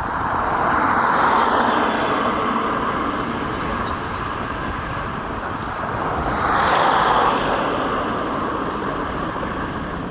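Robinson R44 helicopter noise, a steady rushing sound that swells twice, about a second in and again around six to seven seconds in.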